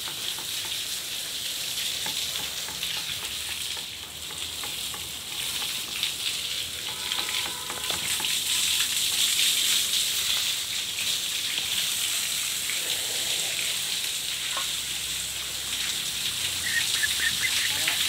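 A stream of water pouring and splashing in a steady hiss as a freshly cast concrete roof slab is soaked to cure it before ceiling plaster.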